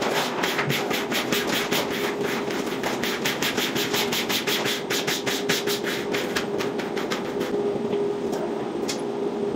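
A quick, regular run of short sharp swishes, about four a second, from hand work on wet frosted window film on glass. It thins out to a few isolated ones after about seven seconds, over a faint steady hum.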